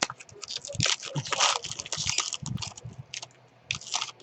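Baseball card pack wrapper crinkling and cards being handled: a run of irregular crackles and scrapes, busiest about a second and a half in, with a short lull near the end.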